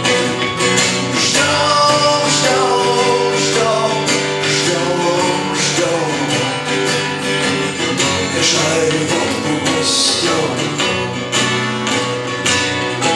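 Live acoustic band playing an instrumental break: strummed acoustic guitar with a melodic lead line over it.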